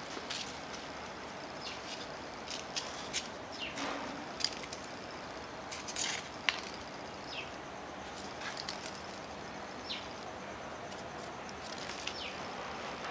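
Steady outdoor background noise with many short, scattered high chirps and clicks.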